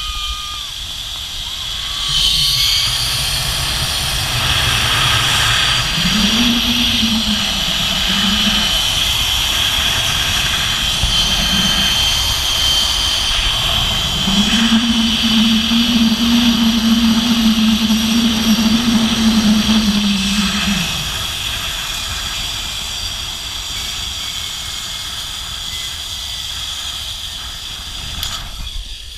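Zipline trolley rolling along a steel cable with a steady high whine, over wind rushing across the microphone. A person's voice rises in long held cries twice, briefly about six seconds in and for about six seconds from the middle.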